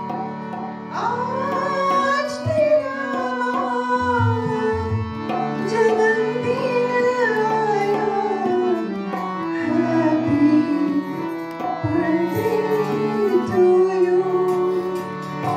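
A woman singing into a microphone, accompanied by a harmonium holding steady chords under her melody. Her voice comes in about a second in, after a held harmonium note.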